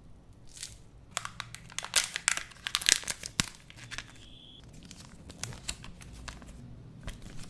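Crinkling and crackling of a Kinder Joy's plastic toy capsule and folded paper leaflet being handled and opened. A dense run of sharp crinkles comes in the first half, then softer rustling, with a brief high-pitched tone about four seconds in.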